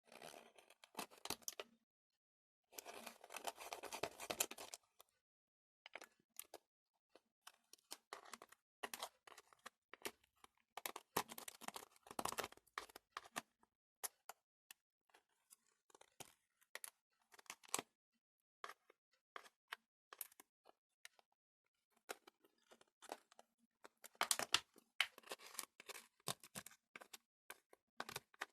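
Gelatin jelly slime being mixed and kneaded by hand: soft, irregular sticky clicks and crackles, with two denser stretches of crackling, one about three seconds in and one near the end.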